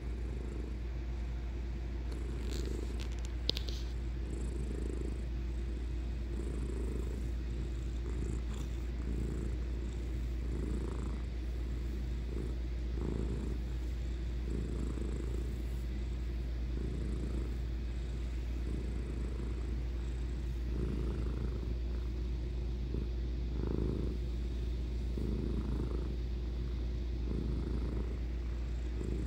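A domestic cat purring steadily, close up, the rumble swelling and easing in a slow rhythm every couple of seconds. One brief click comes about three and a half seconds in.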